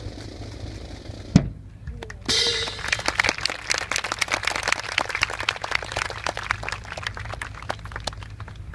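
A single sharp thump about a second and a half in, then an audience breaks into applause that runs on and slowly thins out.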